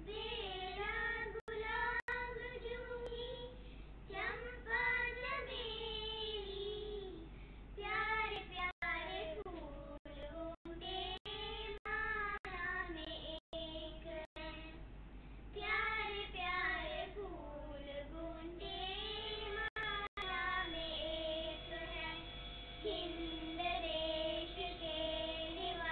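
Young girls singing a melody in unison into a microphone. From about two-thirds of the way through, steady held tones sound under the voices. The sound cuts out for an instant several times.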